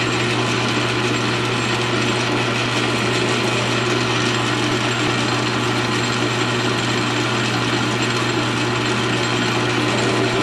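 South Bend 13-inch metal lathe running at a steady speed, its motor and gear train giving a constant hum with a mechanical rattle over it.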